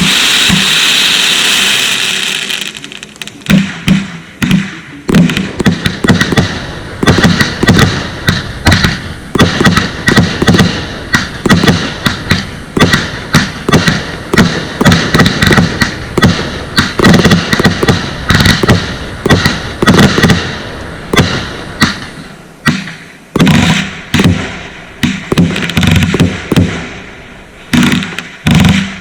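Consumer fireworks going off. A loud hissing rush comes first, then a long barrage of sharp bangs in rapid succession, with a brief lull about three-quarters of the way through before the bangs resume.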